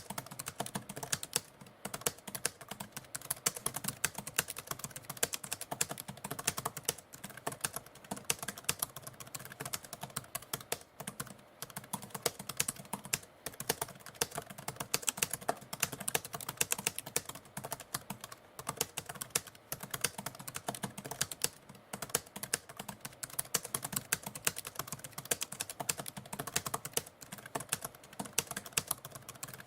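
Typewriter keys clacking in a fast, continuous run of keystrokes.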